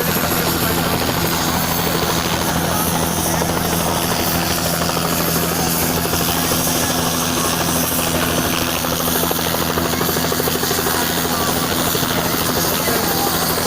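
Helicopter running steadily, its engine whine and rotor blades making a fast, even chop.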